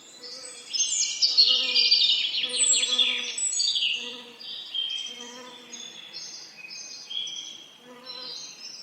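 Songbirds singing in a busy chorus, loudest in the first few seconds, over the hum of bees buzzing that comes and goes.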